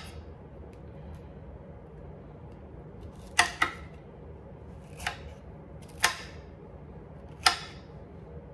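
Chef's knife chopping broccoli and cauliflower on a cutting board: about five sharp, irregularly spaced knocks of the blade striking the board, the first two close together.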